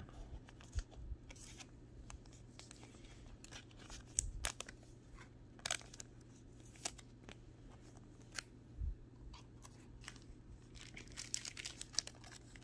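Faint scattered clicks and rustles of trading cards and thin plastic card sleeves being handled, with denser plastic crinkling near the end. A low steady hum underneath.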